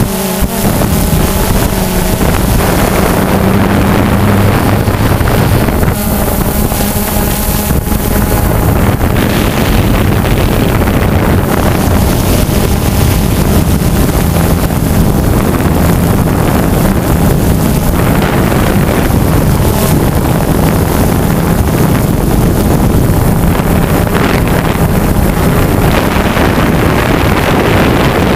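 DJI Phantom 2 quadcopter's four electric motors and propellers whirring steadily, close up from the GoPro slung beneath it, with wind rushing over the microphone. The motor pitch shifts slightly now and then as the drone manoeuvres.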